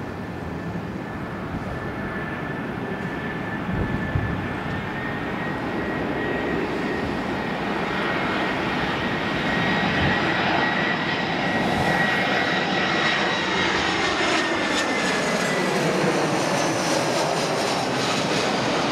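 Airbus A320-214's two CFM56-5 turbofan engines at approach power, flying low overhead on final approach: a high steady engine whine over a rushing jet noise that grows louder as the aircraft nears, then drops in pitch as it passes overhead in the last few seconds.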